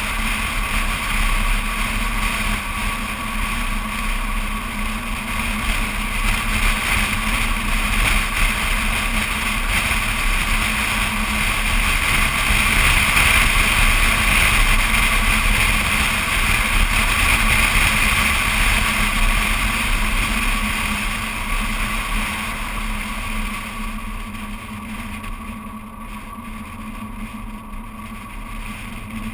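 A BMW Z4 Coupé driving at road speed: steady wind rush on a microphone mounted outside the car, with tyre and engine noise underneath. It grows quieter over the last several seconds as the car slows.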